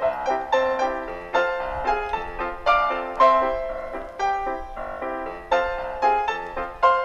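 Background music: a piano melody of struck notes, each dying away, played at an even, lilting pace.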